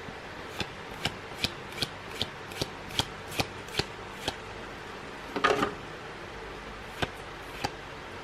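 Magic: The Gathering cards from a booster pack being flipped through by hand, each card snapping as it is slid off the front of the stack: about ten crisp snaps a little over two a second, a brief rustle of cards about five seconds in, then two more snaps near the end.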